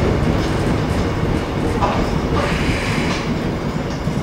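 Seoul Metro Line 1 subway car running, heard from inside the cabin: a steady low rumble of wheels on track with light clicks, and a brief hiss about two and a half seconds in.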